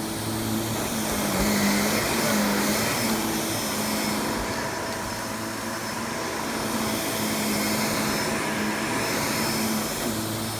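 Shark Rotator upright vacuum cleaner running: a steady motor hum under a rush of air, its loudness rising and falling gently as it is worked over the floor.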